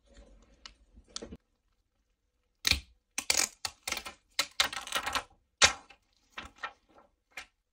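Thin plastic liner of a phone back-glass adhesive sheet crinkling and crackling as it is peeled and handled. The sound comes in a string of short bursts starting a few seconds in.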